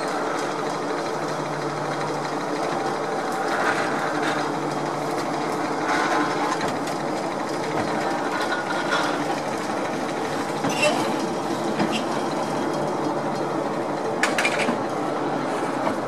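Babbacombe Cliff Railway funicular car running up its track: a steady mechanical whirr and rumble of the car's wheels on the rails. A few short sharp squeaks or clicks come about eleven seconds in and again near the end.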